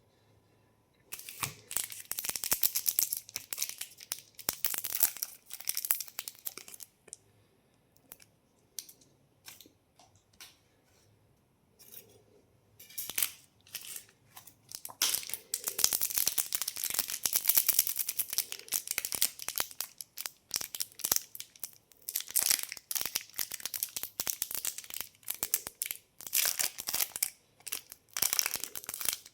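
Candy packaging being torn open and crinkled by hand, in busy stretches of crackling with a quieter spell of scattered crackles in the middle.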